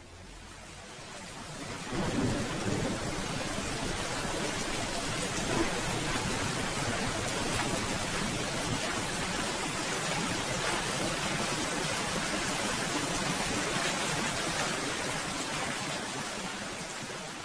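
Steady rainfall, an even hiss of falling rain that swells up over the first couple of seconds, holds steady, and tapers off near the end.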